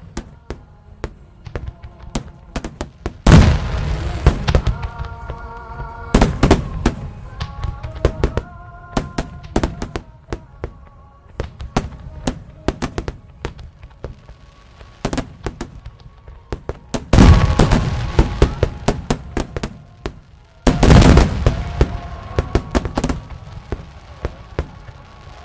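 Large fireworks display: rapid cracks and pops of bursting shells, with four much heavier booms that ring on (about 3, 6, 17 and 21 seconds in), over music playing steadily underneath.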